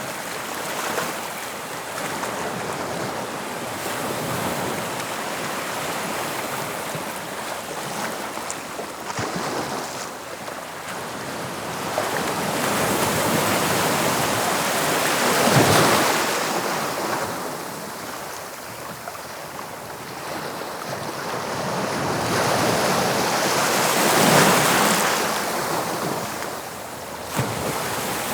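Waves of the English Channel breaking and washing on the shore, the surf swelling and fading, with two larger breakers about halfway through and near the end. Wind rumbles on the microphone at times.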